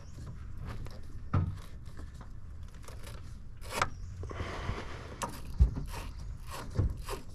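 Scraping and scattered clicks and knocks of tools on metal while dull, oxidised car battery terminals are being cleaned, with a longer scrape about four to five seconds in.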